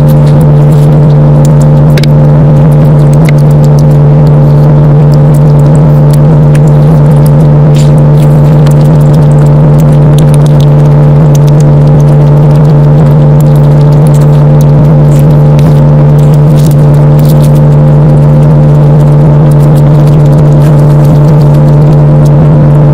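A loud, steady low-pitched hum that does not change, with faint scattered clicks and crackles over it.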